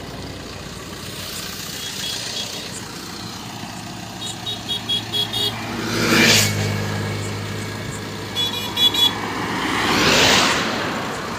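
Highway traffic passing close by: two vehicles swell past, about six and ten seconds in, the first with a low engine hum that lingers. Between them come two quick runs of short, high horn toots.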